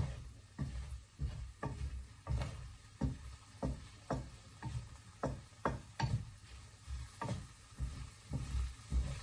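Wooden spatula knocking and scraping against a frying pan as shallots are stirred, about two strokes a second.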